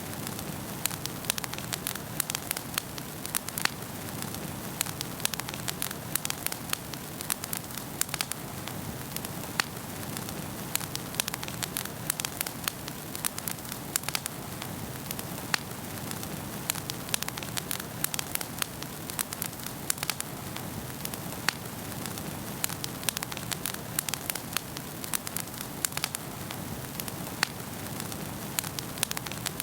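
Wood fire burning in a fireplace, with a steady low rush of flame and many sharp crackles and pops at irregular moments.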